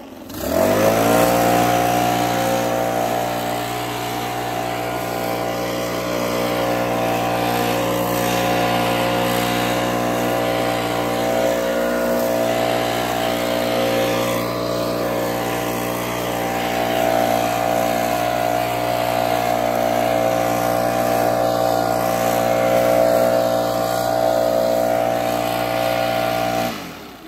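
Leaf blower spinning back up to full speed within the first second, then running steadily at full speed as a loud, even, pitched drone before cutting off suddenly near the end.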